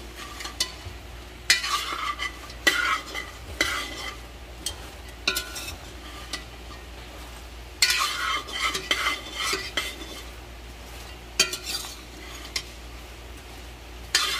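Metal spoon stirring and tossing pepper fries in a large metal pot, scraping and clinking against the pot in several spells of quick strokes with short pauses between.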